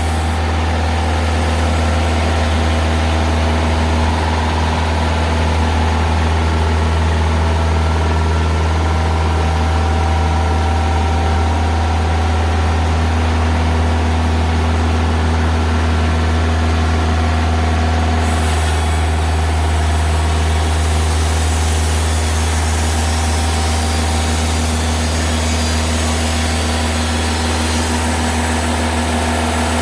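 Diesel engine of a TimberKing 2000 band sawmill running at a steady, even pitch. About two-thirds of the way through, a higher hiss joins it.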